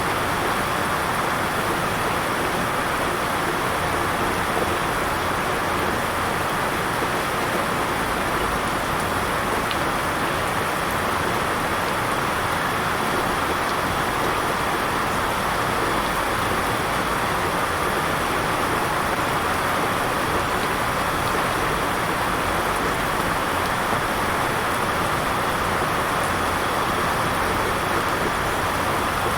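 Intense downpour of heavy rain heard from indoors by a window, a steady unbroken rushing hiss.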